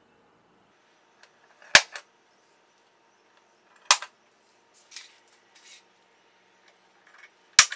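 Center punch snapping into sheet metal, dimpling hole centers so the drill bit will not wander. Three sharp snaps a few seconds apart, with fainter clicks and taps between them.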